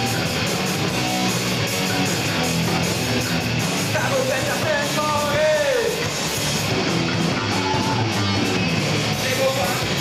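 Rock band playing live: electric guitars and drums going at full volume, with a note bending downward about halfway through.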